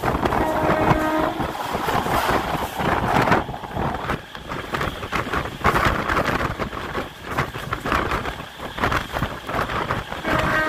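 Wind buffeting the microphone, filmed out of a moving MEMU electric train, over the train's running noise. It rises and falls in uneven gusts.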